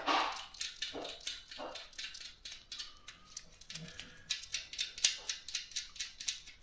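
A dog whining and yelping briefly in the first two seconds, then a run of small sharp clicks, several a second, with one louder click about five seconds in.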